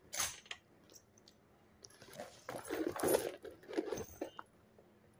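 Hands handling a new bag and its wrapping: a short rustle at the start, then uneven rustling with small clicks a couple of seconds in.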